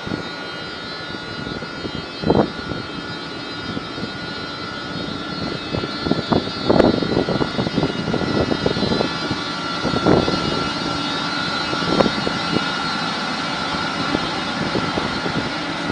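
SNCF BB 26000 electric locomotive hauling Corail coaches past at low speed, with a steady high whine from the locomotive. Irregular knocks and clanks from the wheels on the track grow louder as the locomotive and first coaches go by.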